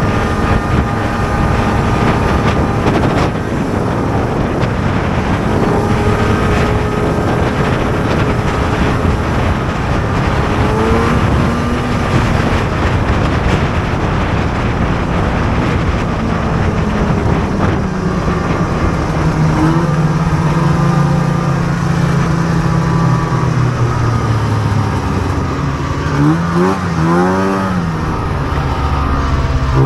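Two-stroke snowmobile engine running at trail speed, heard from the sled it drives. Its note drifts up and down with the throttle, and near the end it rises and falls quickly several times.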